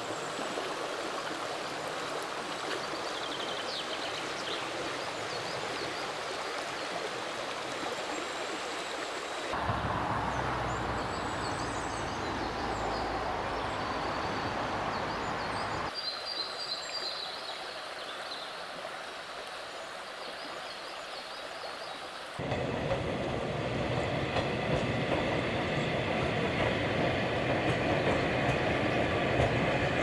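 A river stream rushing steadily, with a deeper rumble in a stretch near the middle. About three-quarters of the way through, a Kirnitzschtal tramway tram takes over as the loudest sound, running past with a steady whine from its motors and wheels.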